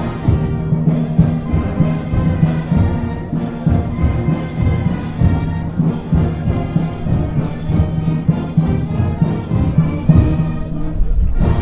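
Brass band playing a slow march, with held brass notes over a steady drum beat about twice a second.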